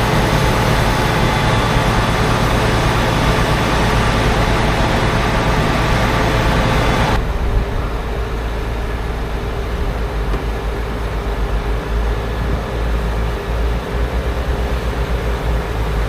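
Heavy farm machinery engines running steadily during corn silage harvesting. About seven seconds in the sound changes suddenly: the higher noise drops away, leaving a lower, slightly quieter engine sound.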